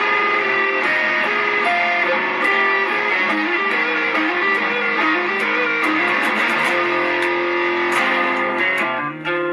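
Guitar playing an instrumental passage of a pop-punk song: held chords with a melodic line stepping up and down over them, turning to short, choppy strums near the end.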